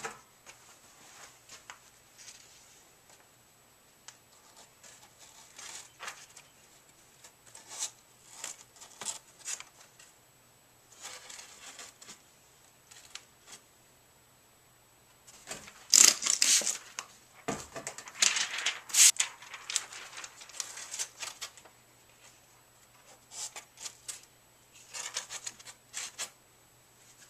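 Plastic window film and its protective backing sheet being handled and pressed onto a plastic window pane: intermittent rustling, crinkling and rubbing, loudest about two-thirds of the way through, over a faint steady low hum.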